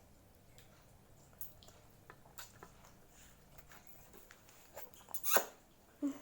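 Close-miked mouth sounds of someone eating fried instant noodles: soft, scattered chewing clicks and lip smacks, with one louder mouth noise about five seconds in.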